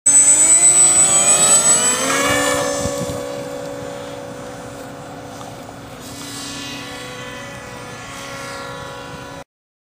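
Homemade RC J-20 model jet's motor running up to full throttle on takeoff, its pitch rising over the first two seconds. It then settles into a steady hum that fades as the plane climbs away, and cuts off abruptly near the end.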